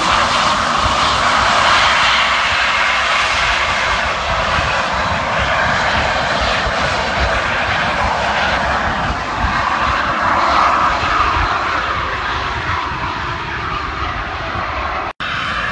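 Jet-powered hoverboard flying overhead: a loud, steady turbine roar with a hissing whine, which cuts out for an instant just before the end.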